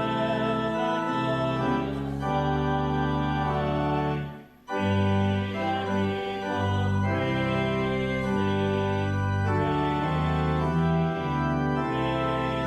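Organ playing a hymn in sustained chords that change every second or so, with a brief break between phrases about four and a half seconds in.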